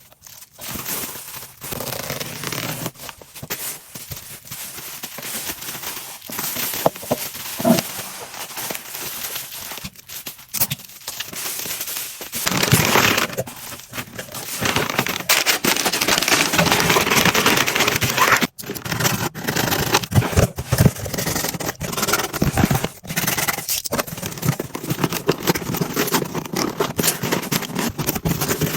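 Hands packing a mannequin: crinkling and rustling of wrapping material, with scraping and tearing sounds and many small clicks. The rustling grows denser and louder in stretches about halfway through.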